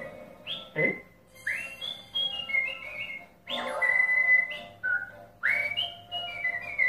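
A man whistling a melody into a handheld microphone: clear, high notes that swoop up and settle into held tones, one after another.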